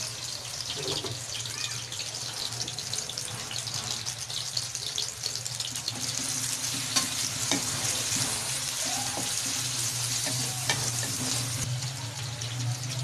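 Bitter gourd pieces sizzling as they fry in oil in an aluminium kadai, stirred with a wooden spatula that gives a couple of sharper knocks on the pan, about seven and eleven seconds in. A steady low hum runs underneath.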